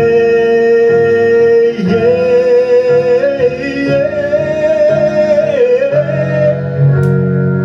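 A singer holding one long, sustained sung note with vibrato that steps up in pitch about two seconds in, over guitar accompaniment.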